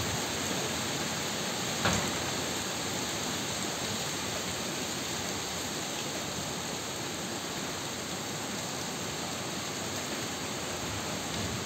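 Heavy rain pouring down in a steady, even hiss, with a single short knock about two seconds in.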